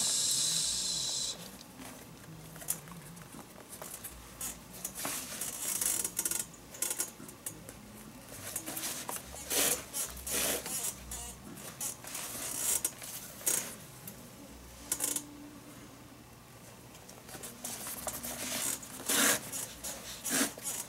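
Leather lace being drawn through the lace holes of a Rawlings baseball glove with a lacing needle: a hiss of about a second as the lace slides through at the start, then scattered short rustles, rubs and taps of lace on leather as it is worked and tightened.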